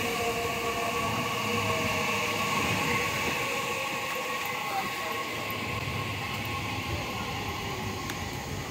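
JR Central 315 series electric train at a station platform, running with a steady rumble and a whine of several held tones that drift slightly lower.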